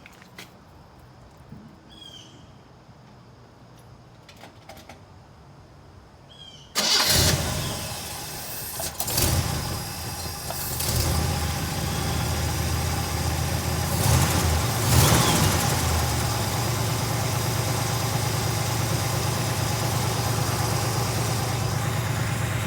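The 1965 Pontiac GTO's original 389 V8 with tri-power carburetion starts suddenly about seven seconds in, runs unevenly for a few seconds, then settles into a steady idle.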